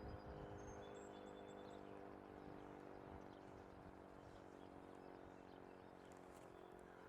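Near silence: a few faint, short, high bird chirps in the first two seconds over a faint, steady hum of several low tones that slowly fades.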